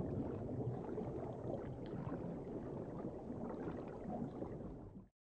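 Muffled underwater ambience: a low, steady rumbling wash with faint scattered crackles. It cuts off abruptly near the end.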